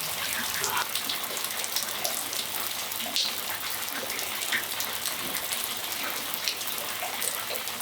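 Steady rain falling on a patio, an even hiss with scattered individual drops tapping close by.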